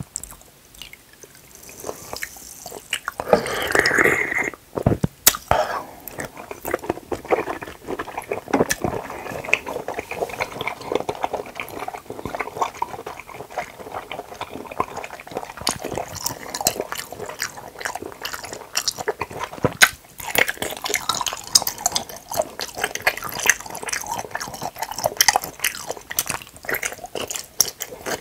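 Close-miked wet eating sounds of cup jelly: slurping the jelly from its cup and chewing it, dense squishy clicks and smacks, with a louder stretch of slurping about four seconds in.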